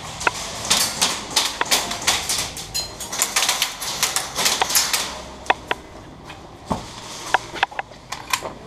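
Airsoft guns firing: a fast, irregular run of sharp clicks and snaps for about five seconds, then scattered single shots and hits until near the end.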